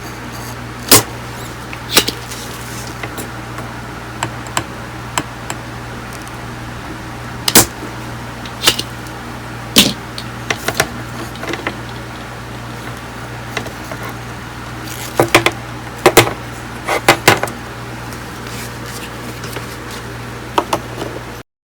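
Scattered sharp clicks and knocks of tools and parts being handled during circuit-board repair work, over a steady low hum. The sound cuts off abruptly near the end.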